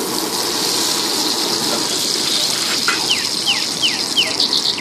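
Egg frying in oil on a flat iron griddle (tawa), a steady sizzling hiss. Near the end, four quick falling chirps sound over it.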